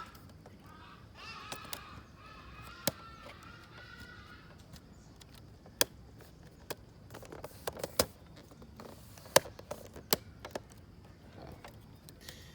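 Scattered sharp clicks and taps of plastic laptop case parts being handled and pressed together, with a bird calling in the background during the first few seconds.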